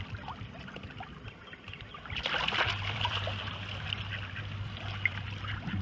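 Water lapping and sloshing right at a camera held at the water's surface, with a louder splashing rush about two seconds in.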